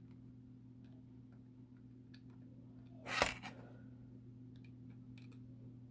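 Faint small ticks of a plastic glue bottle and its nozzle being worked against a laser-cut wooden model frame, over a steady low hum. About three seconds in there is one brief, sharp clack with a short rustle, the loudest sound.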